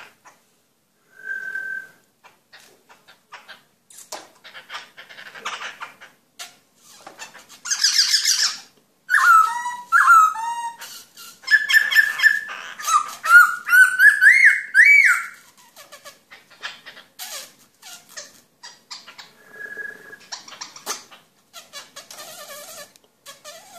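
Caged black-throated laughingthrush calling: scattered short whistles and harsh, hissing notes, with a loud run of whistled notes climbing in pitch around the middle. Light clicks and rustles run throughout.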